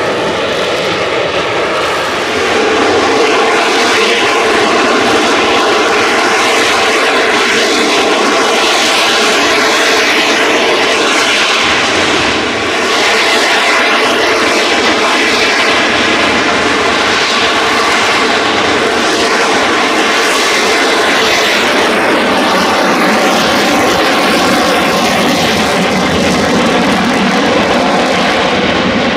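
Military fighter jet flying low, its engine a loud, steady rush with whining tones running through it and a brief dip about twelve seconds in.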